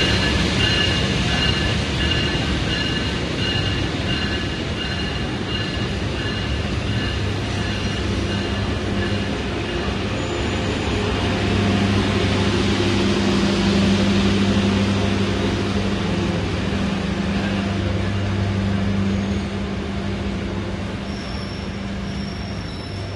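KA 112 Mutiara Selatan passenger train moving along the station track: a continuous rumble of the coaches, with a thin high squeal in the first half and a steady low drone from about eleven seconds in.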